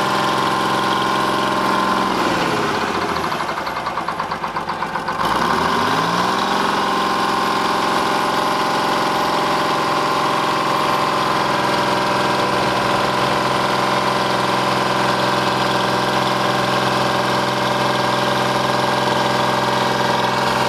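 A 1973 Euclid bulldozer's diesel engine running steadily. About two seconds in its pitch sinks and it slows with a pulsing beat, then about five seconds in it picks back up to its steady speed and runs on.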